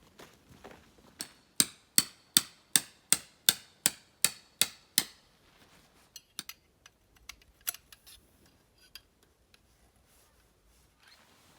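A hammer driving tent pegs: about ten sharp, evenly spaced metallic strikes, then a few lighter taps and clicks.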